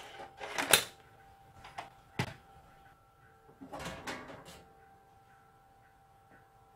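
Handling noises on a Victor BR-8600 VCR: sharp clicks and a knock at the front loading cassette door, then the sheet-metal top cover rattling as it is lifted off. A faint steady hum sits underneath.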